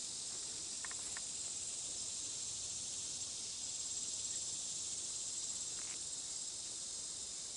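Steady high-pitched drone of insects, with a few faint ticks about a second in and again near six seconds.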